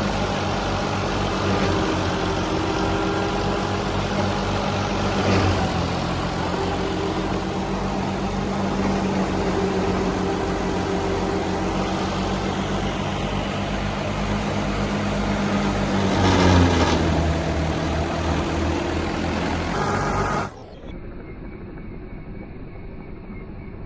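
Combine harvester engine and machinery running steadily under load, with brief louder surges about five seconds in and again around sixteen seconds. About twenty seconds in the sound drops suddenly to a quieter, duller running.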